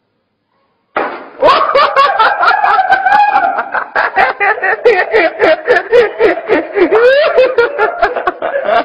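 Loud, hearty human laughter that starts abruptly about a second in and goes on in rapid, rhythmic bursts.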